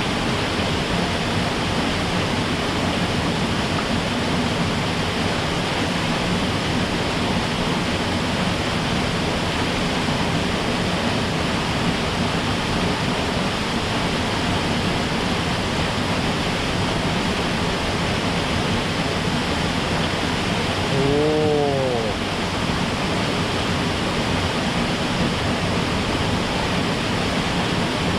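Mountain stream water rushing steadily. About 21 s in, a brief pitched vocal sound rises and falls once.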